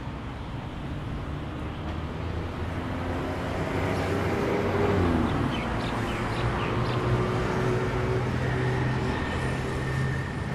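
Road traffic: vehicle engines running steadily. About halfway through, a louder vehicle passes by close and its engine pitch drops.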